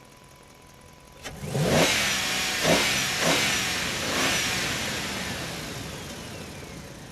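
A truck engine revved in four quick throttle blips, starting just after a click about a second in, then fading away over the last few seconds.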